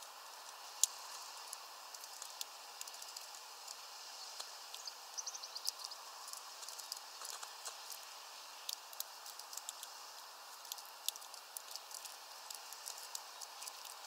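Irregular sharp taps of a blue tit pecking at a seed-studded fat ball in a mesh feeder bag, over a steady outdoor hiss. About five seconds in there is a short rapid run of faint high notes.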